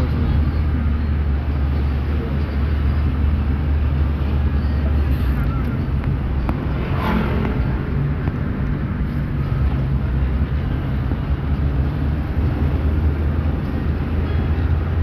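Car driving slowly, heard from inside the cabin: a steady low rumble of engine and tyres on the road. A brief swell of a passing sound comes about halfway through.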